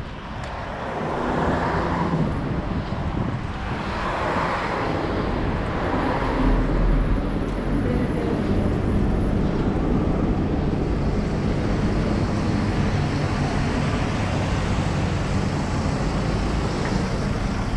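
City street traffic: motor vehicles running and passing on the road beside the pavement, a steady low engine rumble under the noise of tyres, growing louder about a second in.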